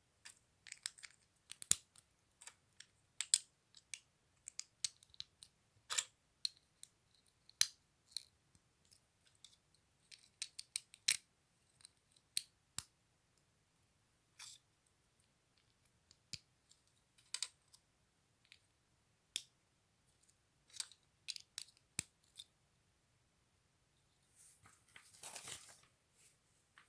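Small plastic LEGO pieces being handled and pressed together: irregular sharp clicks and light taps, with a longer rustle near the end.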